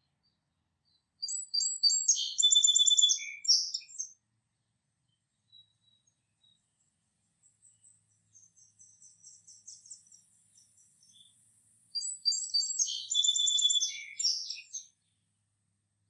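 A songbird sings the same complex, trilling song phrase twice, each about three seconds long, about ten seconds apart. Fainter high chirping from another bird runs between the two songs.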